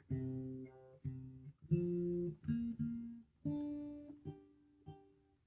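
Guitar being tuned: single strings plucked one at a time, each note ringing and fading, with short gaps between the plucks.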